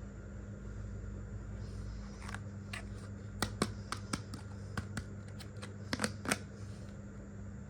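Small clicks and taps of miniature toy kitchen pieces being handled: about a dozen sharp, separate ticks from about two seconds in to past six seconds, over a steady low hum.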